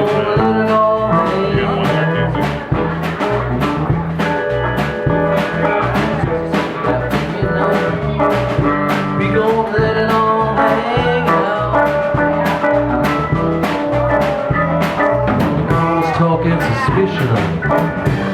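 A live rock band playing: drums keeping a steady beat under electric guitar and bass.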